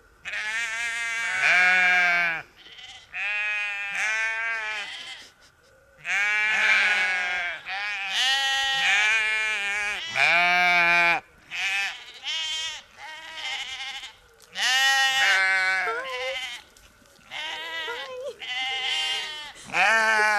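Sheep bleating loudly and repeatedly, about ten calls one after another with short gaps between them, several voices overlapping at times.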